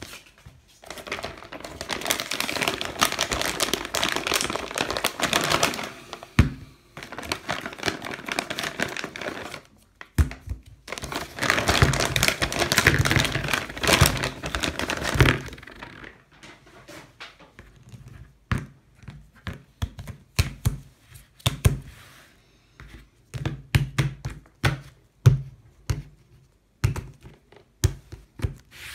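Crinkly packaging of a Play-Doh party bag rustling and crackling as it is opened and handled, loudest about ten seconds in. Then a long run of short irregular knocks as the small plastic Play-Doh tubs are set down and stacked on a table.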